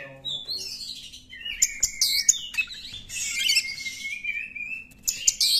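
Oriental magpie-robin singing: a continuous, varied run of whistled phrases and rapid trills.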